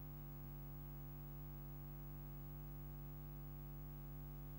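Steady, faint electrical hum with a buzzy edge, unchanging throughout: mains hum in the broadcast recording while the commentary and stadium sound are absent.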